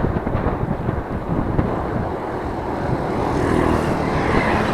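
Strong wind buffeting the microphone during a ride, an uneven low rumble, with a hissing swell building near the end.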